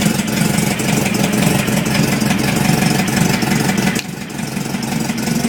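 Volkswagen engine idling with a repeated knocking over its steady hum. The sound gets quieter about four seconds in. The owner says this knock goes away once the engine is warm.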